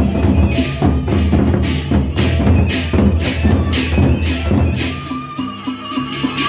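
Sasak gendang beleq ensemble playing: large double-headed barrel drums beaten under hand cymbals clashing about twice a second. About five seconds in the deep drum sound drops back and the cymbal strokes quicken.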